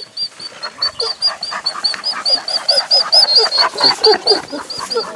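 Wolves whining and squeaking close to the microphone: many short cries that slide up and down in pitch. Over them runs a fast, even series of thin high chirps, about five a second.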